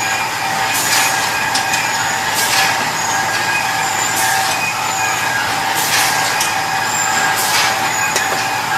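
A machine running with a steady whine, cut by short hissing bursts about every second or so.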